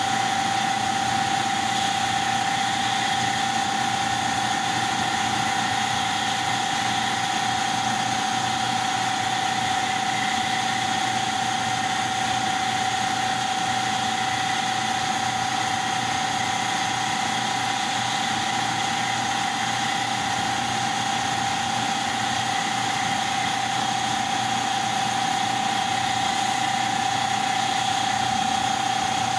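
Bao Yuan Tong CNC laser cutting machine running steadily as it cuts a sheet: an even machine hum with a constant mid-pitched whine.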